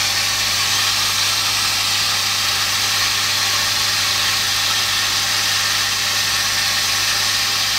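High-pressure booster pump, a stainless-steel jet pump on an electric motor, running steadily: a constant motor hum under an even hiss, not too noisy.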